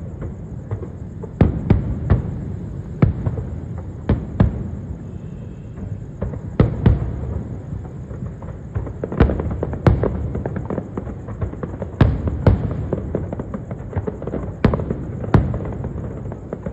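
Aerial fireworks bursting: sharp bangs at irregular intervals, sometimes several a second, over a steady low rumble of further explosions.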